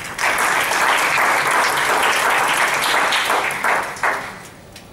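Audience applauding: a dense round of clapping that starts right away, dies down after about four seconds and ends with a few last scattered claps.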